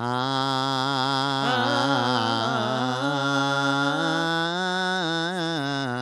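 A man singing a long, wordless held note on an open vowel with steady vibrato. The note steps up a little about four seconds in and drops back near the end. This is a seong-eum vocalise, a trot voice exercise sung without lyrics to keep the tone evenly on the vocal cords.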